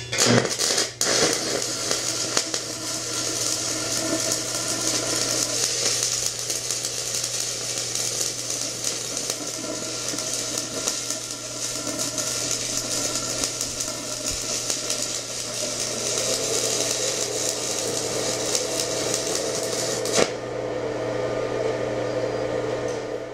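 Stick (SMAW) welding arc crackling and sizzling steadily as an electrode runs a flare-bevel weld on thick-walled steel square tubing. The arc strikes with a few sputters at the start and breaks off about twenty seconds in, leaving a low hum.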